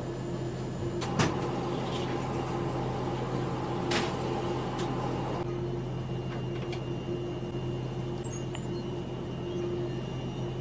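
A steady low mechanical hum, with two sharp knocks about a second in and about four seconds in and a few fainter clicks, as a knife works fish fillets on a plastic cutting board.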